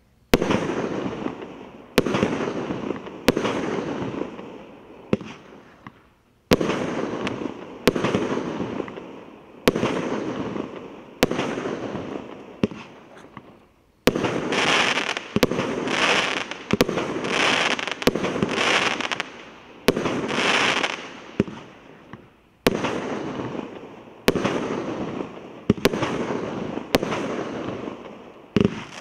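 A 19-shot, 29 mm firework cake firing its shots one after another, a sharp bang every second or so, each followed by a fading rush of sound. Midway through, the shots come closer together with more high sizzle.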